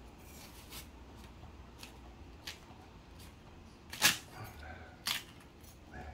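A few sharp clicks and knocks from handling the cut watermelon and tableware, the loudest about four seconds in and another about a second later, over faint room hum.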